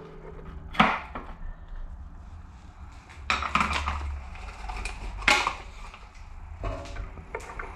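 Handling noise at a stopped metal lathe: a few separate metal clicks and knocks, with a short cluster in the middle, as a bearing is picked up and tried in the freshly bored part. A steady low hum runs underneath.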